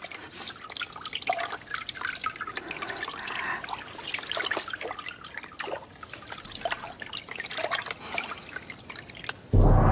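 Water splashing and dripping in small irregular splashes off a soaked person. Near the end, a loud deep gong-like stroke starts abruptly and rings on.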